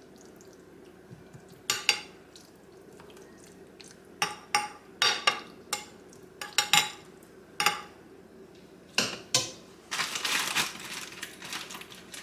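A metal spoon clinking and scraping against a glass casserole dish as thick macaroni goulash is spread out, in about ten separate knocks. Near the end a dense crinkling rustle sets in.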